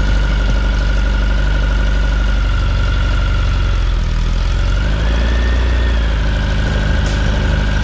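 Air-cooled 2332cc Volkswagen flat-four in a 1967 Beetle idling steadily, its speed rising briefly about five seconds in before settling back to idle.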